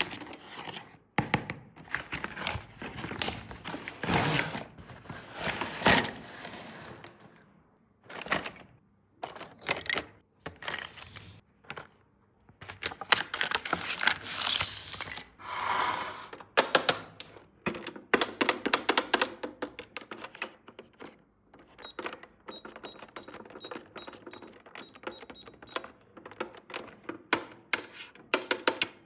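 Toys and packaging being handled: many quick clicks, taps and knocks, with stretches of crinkly rustling early on and about halfway through.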